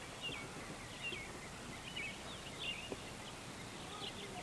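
Scattered faint bird chirps over a steady outdoor background hiss.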